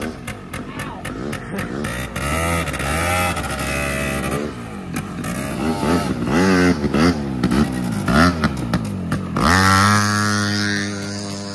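Small two-stroke engine of a Polaris Predator 90 youth ATV being ridden, its revs rising and falling over and over as the throttle is blipped, then climbing sharply and held high about nine and a half seconds in.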